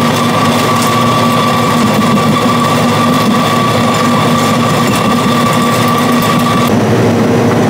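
Electric nut-butter grinder running steadily as it grinds pistachios into paste: a loud motor hum with a high whine that cuts off near the end.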